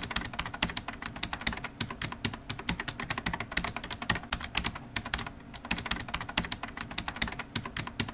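Keyboard typing: rapid, irregular key clicks, several a second, keeping on without a break.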